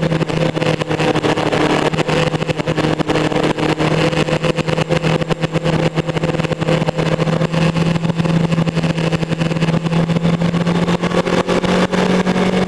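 Motorcycle engine running steadily at cruising speed, with heavy wind buffeting on the microphone. The engine note climbs a little near the end.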